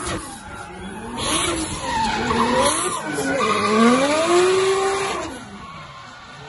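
Drift car sliding with its engine revving up and down and its tyres squealing; the engine pitch climbs and falls several times, loudest about four seconds in, and eases off after about five seconds.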